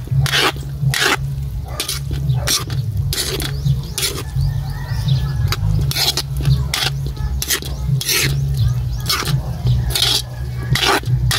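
Metal spoon stirring and tossing rice noodles in a steel wok, scraping and clinking against the pan about twice a second in an uneven rhythm, over a steady low rumble.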